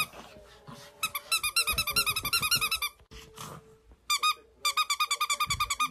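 Rubber squeaky dog toy squeezed rapidly over and over: two fast runs of short high squeaks, about seven or eight a second, the second run starting about two-thirds of the way in.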